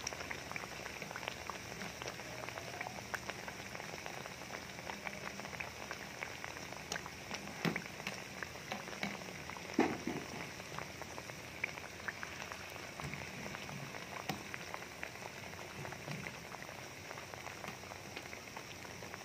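Battered banana slices deep-frying in hot oil: steady sizzling with scattered crackles and pops, two louder pops about eight and ten seconds in.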